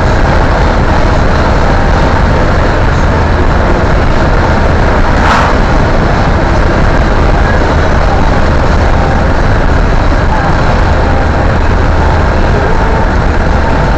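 Steady road and engine noise of a moving car heard from inside the cabin: a low rumble with tyre hiss over it. There is a single brief sharp noise about five seconds in.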